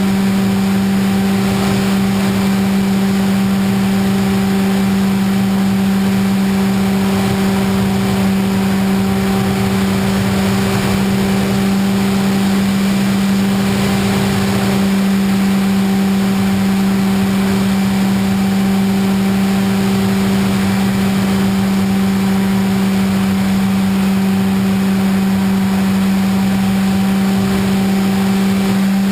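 Electric motor and propeller of an FPV model airplane running at steady throttle: a constant, loud buzzing hum that barely changes in pitch.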